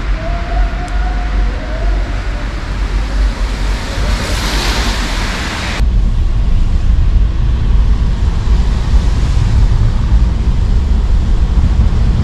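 Wind buffeting the microphone over a hissing wet-street noise that swells about four seconds in. Near the middle it cuts abruptly to the low, steady road rumble inside a moving taxi.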